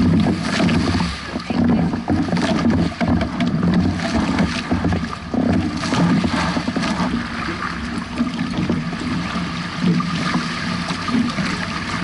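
Water rushing and splashing against a Hobie 16 catamaran hull as it sails through choppy waves, with wind noise on the microphone.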